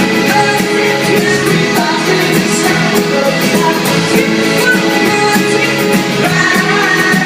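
Indie-folk rock band playing live at full volume: steady drum beat under the band, with singing.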